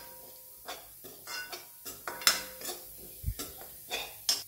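Metal spoon scraping and clinking against a metal pan while grated dry coconut is stirred and roasted in ghee, in short irregular strokes about two to three a second.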